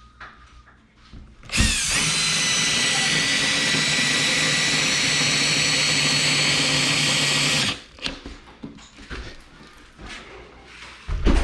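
Power drill driving a screw into a wooden wall, running steadily for about six seconds. It spins up with a quick rise in pitch about a second and a half in and stops abruptly.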